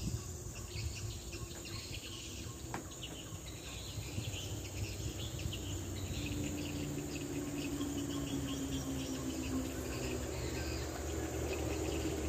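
Insects chirping steadily in short, rapid repeated pulses, over a low background rumble.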